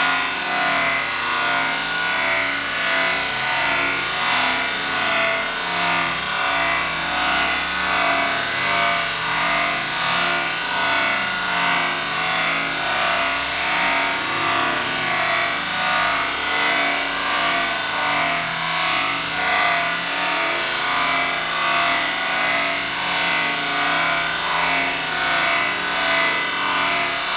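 Renault Twingo petrol engine running with a misfiring injector, heard in slow motion as a steady, loud noise that swells and fades in a slow, even pulse.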